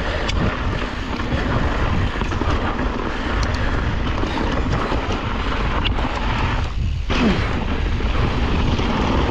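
Riding noise from a Yeti SB 150 full-suspension mountain bike on a dirt trail: steady wind rumble on the chest-mounted camera's microphone, tyre roar and rattle, and a few sharp clicks.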